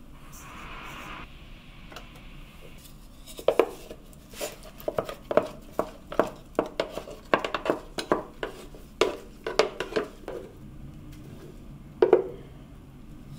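A plastic container clinking and knocking against a stainless steel mixing bowl on a kitchen scale: a quick run of light knocks, then one louder knock near the end as the container is tipped to pour in the poolish.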